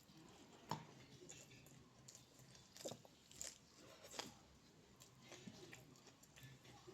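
Close-miked chewing of food: soft, wet mouth sounds with a few sharper clicks and crunches, one about a second in and others around three and four seconds.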